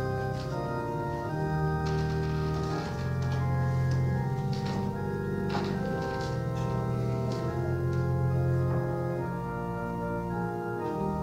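Organ playing slow, held chords with a deep bass line, the chords changing every second or two.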